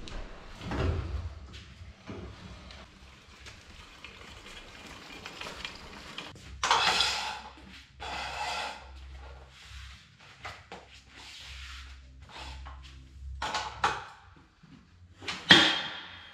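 Clunks, scrapes and knocks of a motocross bike being wheeled off a loading ramp and set on a bike stand. The loudest is a sharp metallic knock near the end, followed by a brief ring.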